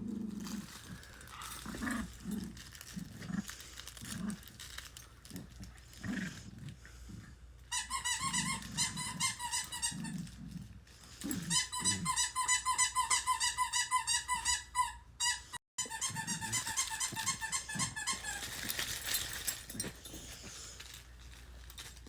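Puppy whining: high, steady-pitched, quavering whines in long stretches from about 8 seconds in, after several seconds of soft snuffling and small thumps.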